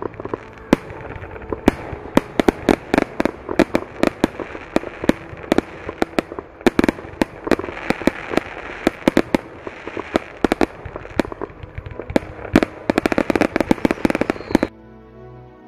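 Fireworks display: a long, irregular string of sharp bangs and pops from bursting shells, crowding into a dense crackling volley near the end before cutting off suddenly.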